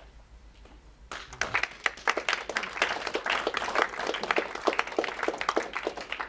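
Audience applauding, starting suddenly about a second in after a brief hush and going on steadily.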